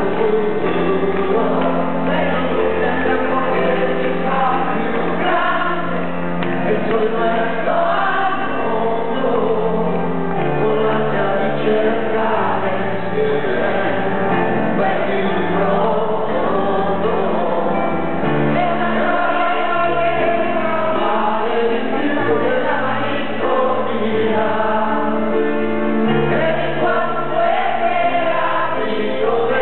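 Live song performance: a stage piano played under several voices singing together. The music is steady and unbroken.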